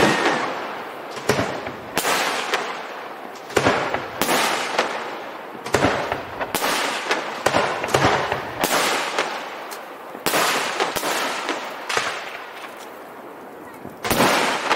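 Aerial firework shells bursting one after another, sharp bangs about every one to two seconds, each trailing off in an echo; a strong bang comes near the end.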